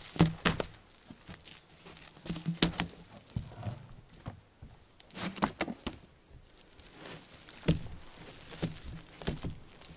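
Roll of black bitumen roll roofing being unrolled and pressed flat on a plank deck: irregular bursts of crinkling and rustling with sharp knocks now and then, the loudest near the start and again about a second before the end.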